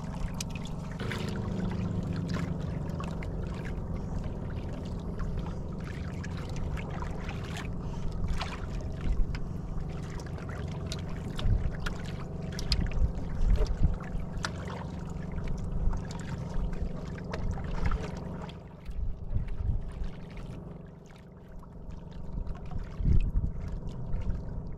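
Outrigger fishing boat's motor running steadily, with water splashing against the hull and scattered knocks of gear on the boat. The motor's hum weakens about three-quarters of the way through.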